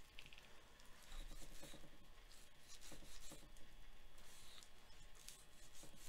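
Faint scraping and small clicks of a thin-bladed knife slicing silver skin from a raw beef chuck roll on a plastic cutting board.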